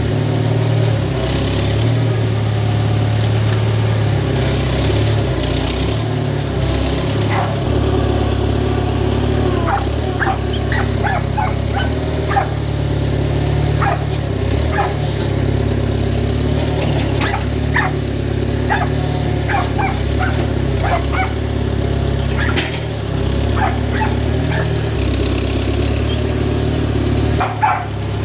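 International loader tractor's engine running steadily, with a dog barking many times in short bursts through the second half.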